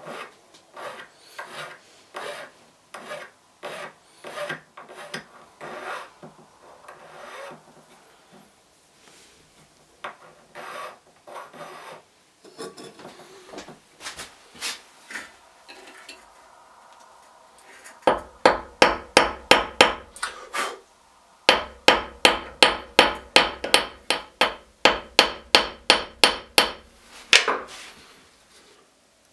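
Hand filing of a small silver piece with a needle file against a wooden bench pin, in uneven scraping strokes. After that come two quick runs of loud, even hammer blows on a small steel anvil, about three a second, with a short pause between them.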